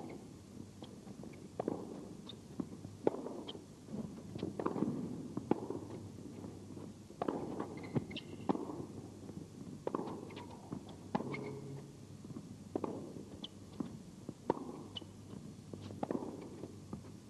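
Tennis rally on an indoor court: sharp racket-on-ball strikes and ball bounces about every second or so, over low arena background noise.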